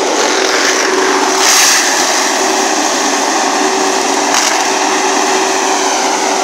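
Galotrax 300 tracked forestry mulcher running hard, its rotor shredding brush and wood: a loud steady drone with splintering and crackling throughout, and a sharp crack near the end.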